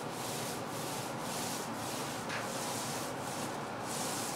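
Paint roller being rolled back and forth on a wall, a rhythmic swishing with each stroke, about two strokes a second.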